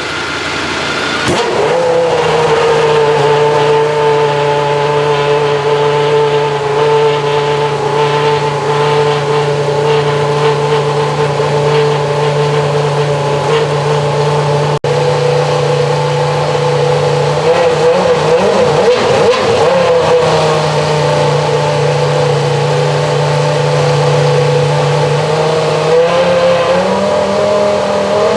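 Renault R25 Formula One car's 3.0-litre V10 starting up about a second in, then held at a steady speed during its warm-up. The engine note wavers unsteadily for a few seconds around the middle and steps up in pitch near the end.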